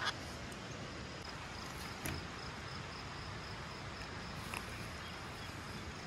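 Steady faint outdoor background hiss with a few faint clicks and knocks as the bolts of a plastic well cap are undone and the cap is lifted off the steel well casing.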